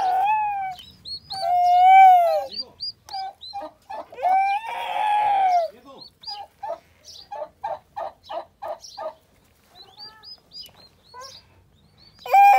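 Newly hatched turkey poults peeping with short, high, falling peeps, mixed with three long, arched calls from a bird, and a run of quick short clucks, about three or four a second, through the middle.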